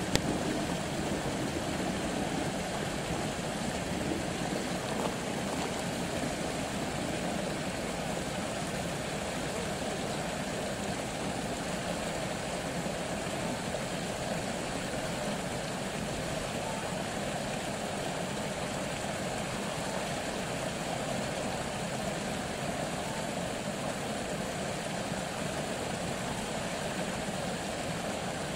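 Diesel railcar heard from a distance, its engine a steady drone with no change in level.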